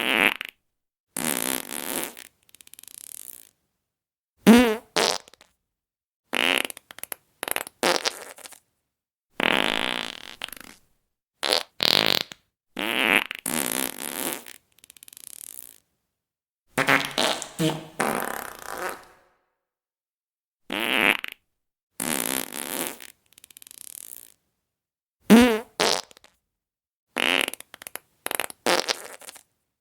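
Fart sound effects, one after another: a string of separate farts, each lasting under two seconds, with short silent gaps between them. Some are breathy and some are buzzing and pitched, and the two loudest are buzzing ones, about four seconds in and near the end.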